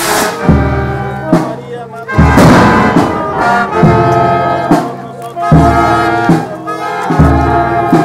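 Brass band playing loudly, with trumpets and trombones holding sustained chords over a deep bass line, punctuated by sharp drum or cymbal strikes about once a second.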